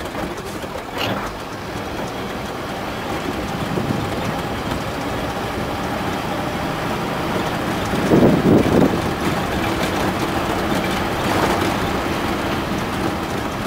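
Cab noise of a Bedford MJ/MK 4x4 truck driving on a dirt road: a steady engine drone and road rumble. About eight seconds in there is a louder burst of rumble lasting about a second.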